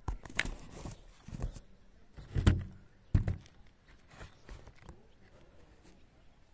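Knocks and thumps of the camera being handled and set in place, the two loudest about two and a half and three seconds in, then a few quieter ticks.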